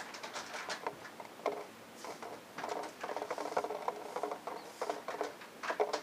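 King quail pecking and scrabbling in a glass bowl: irregular bursts of quick, light taps with a drum-like patter, densest in the second half.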